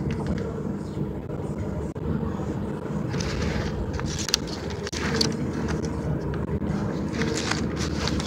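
Steady low rumble, with crackling and rustling from fingers handling a paper bill and the phone close to the microphone, heaviest in the middle and again near the end.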